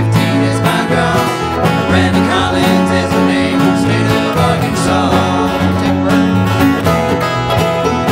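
Acoustic bluegrass band playing an instrumental break, with banjo, acoustic guitars, mandolin and upright bass.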